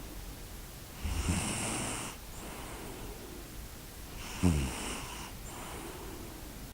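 Snoring: a long snore about a second in and another about four and a half seconds in, the second starting sharply and falling in pitch, with quieter breathing between them.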